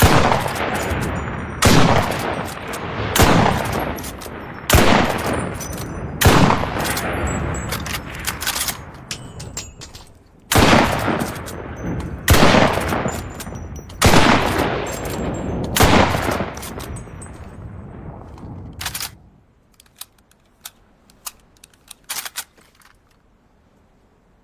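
Arisaka Type 97 bolt-action sniper rifle, 6.5 mm, firing nine shots, each with a long echoing tail. The shots come about every second and a half, five then a pause and four more. Light clicks follow near the end, the rifle being worked.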